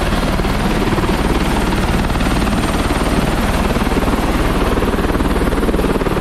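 Helicopter running on the helipad with its rotor turning: a loud, steady, rapid rotor beat over engine noise.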